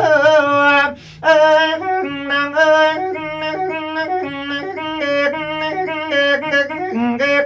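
Man singing Thai lae-style verse with no words: a held note that breaks off about a second in, then a long run of quick, wavering ornamented notes on open vowels.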